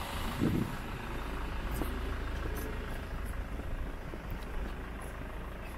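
Steady low rumble of outdoor background noise, with a brief low murmur about half a second in and a few faint ticks.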